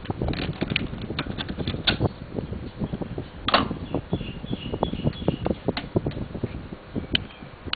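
Clicks and knocks of a cassette being loaded into a Pioneer CT-606 cassette deck, its cassette door shut, and its piano-key transport buttons handled. The loudest knock comes about three and a half seconds in.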